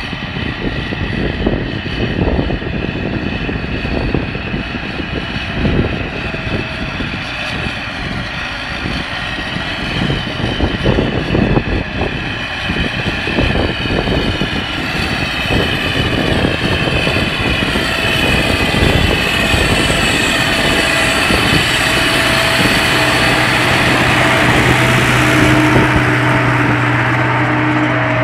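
MTZ 920.3 tractor's diesel engine running steadily under load while pulling a plough, growing louder as the tractor comes close, with gusty wind rumble on the microphone in the first half.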